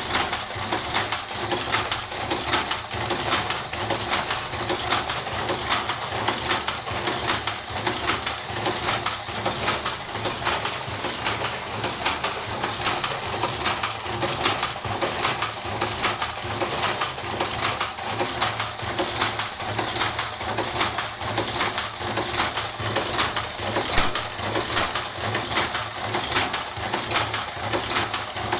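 Karaşimşek cigarette-rolling machine running steadily, a fast, even rattle of clicks as it rolls tobacco into cigarettes.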